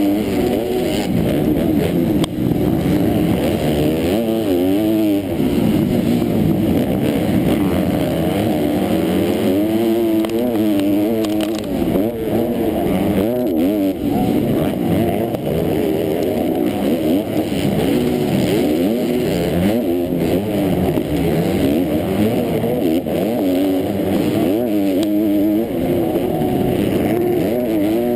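Motocross bike engine heard up close from the bike at race pace, its pitch climbing and dropping over and over as the throttle is opened and closed through shifts and jumps.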